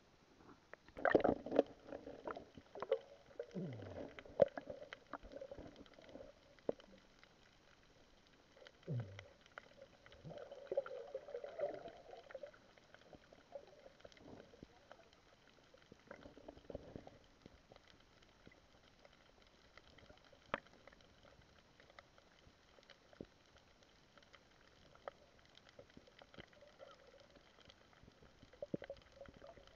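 Muffled underwater water sounds from a diving action camera: bursts of sloshing and gurgling with a couple of short falling bubble glugs in the first dozen seconds, then mostly scattered sharp clicks and ticks.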